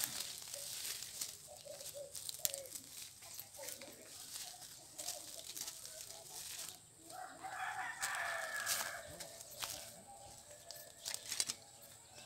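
A rooster crows once, a long call of about two seconds starting about seven seconds in, over scattered crackles and rustles of dry grass and leaves underfoot.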